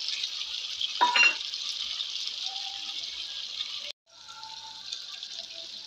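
Tomatoes sizzling in hot ghee in a steel kadhai, a steady frying hiss. It cuts out for an instant just before four seconds, then carries on.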